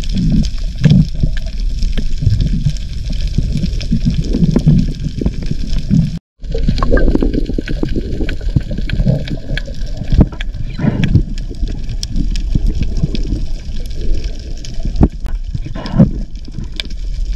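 Water sloshing and gurgling around a camera in the water, muffled and uneven, with scattered clicks. The sound drops out briefly about six seconds in.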